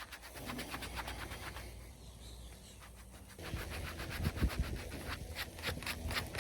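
Quick, repeated strokes of a patch kit's metal scratcher rasping over a rubber bicycle inner tube held against a piece of wood, getting louder about halfway through: the tube is being roughened around the puncture so the patch glue will bond.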